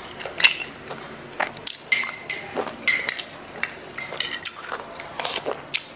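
Metal spoons clinking and tapping against small ceramic bowls while people eat, in many light, irregular clinks, some with a short ring.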